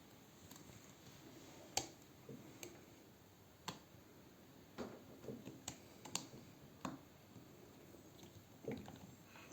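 Faint, scattered clicks and taps of small parts being handled while the iPad's LCD flex cable is plugged into its connector and pressed down, about seven in all, the sharpest about two seconds in.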